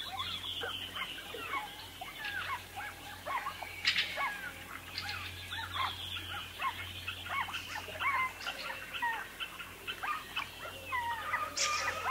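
Wild birds singing and calling together: many short rising and falling whistled notes overlapping, with two sharper, louder calls, one about four seconds in and one near the end. A low steady hum lies underneath.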